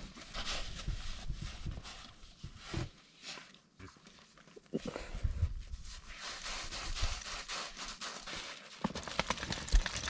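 Crunching and scraping in coarse, icy snow as a dog rolls, noses about and steps on a snowfield: an uneven run of crunches with a few louder thumps.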